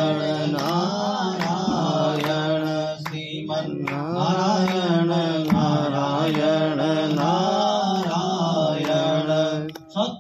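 Hindu devotional chant (mantra) sung in a continuous, gliding melodic line, with brief pauses about three seconds in and near the end.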